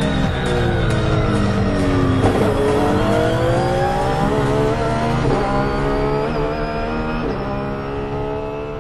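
Honda NSX JGTC race car's V6 engine heard from inside the cockpit: the engine note falls as the car slows, then climbs hard under acceleration with three quick upshifts about a second apart.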